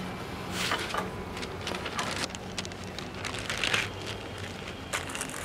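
Wrapping being handled: an irregular rustling and crinkling, in short scattered bursts.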